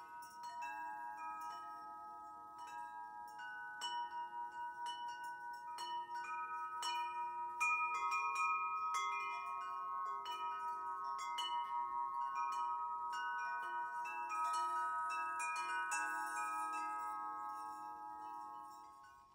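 Metal tube wind chime ringing: its tubes are struck again and again at an uneven pace, each clear bell-like note ringing on and overlapping the next, then the sound dies away near the end.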